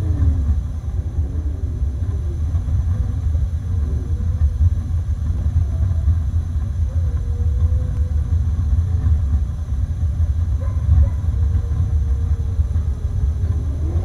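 Steady low rumble of snowstorm wind, with faint, drawn-out wolf howls several times in the distance.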